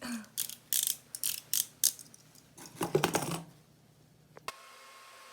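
A package being handled and unwrapped: a quick string of short crinkling and clicking noises. About four and a half seconds in it cuts off sharply to a steady faint hiss.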